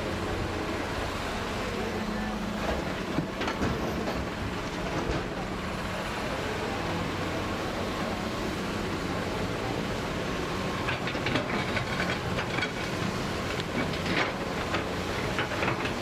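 Hitachi crawler excavator's diesel engine running steadily under load as the machine digs. Bursts of clattering and scraping from the bucket working soil and rocks come about three seconds in and again from about eleven seconds in.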